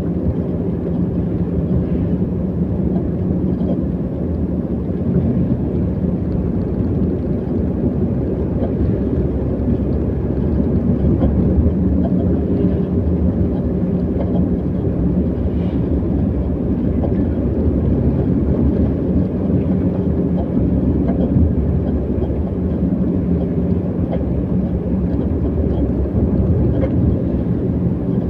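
A vehicle under way on the road: a steady low engine hum under a continuous rumble of wind and road noise.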